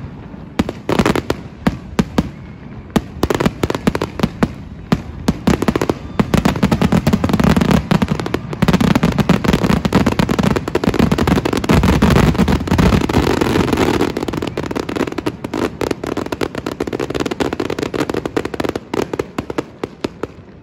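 Aerial fireworks display: a run of booming shell bursts and crackle that thickens about six seconds in into a dense, continuous barrage, then thins to scattered bangs near the end.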